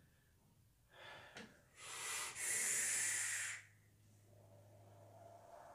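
A hard, hissing draw on a rebuildable dripping atomizer fitted with a micro Clapton helix zipper coil, loudest for about a second and a half, followed by a softer breathy exhale of the vapour cloud.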